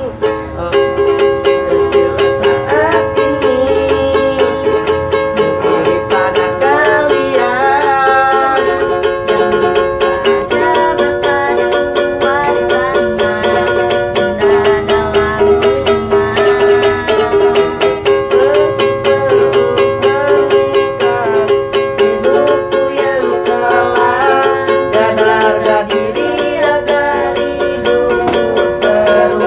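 Ukulele strummed in a steady rhythm, with a young man and a young woman singing a song over it.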